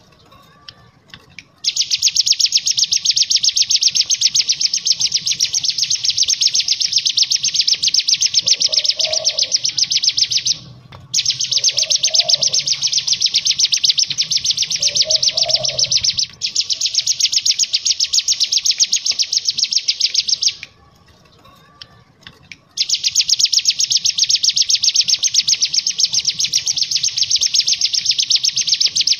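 Caged ciblek gunung (hill prinia) singing its 'ngebren' song: long, very rapid high buzzing trills, each lasting several seconds, broken by short pauses at the start and about two-thirds of the way through.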